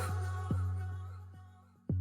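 Background pop music in a short break between sung lines: a low held bass note fades away, with a few light beat hits and a sharp low drum hit near the end.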